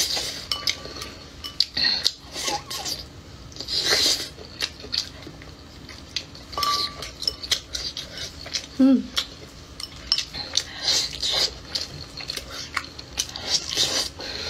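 Close-up eating sounds of someone chewing and smacking on braised pork ribs, with chopsticks clicking against a bowl. There is one short falling vocal sound about nine seconds in.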